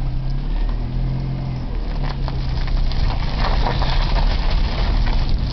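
Car engine running steadily at low speed, with a growing crunch and rush of tyres rolling over gravel from about two seconds in as the car moves off.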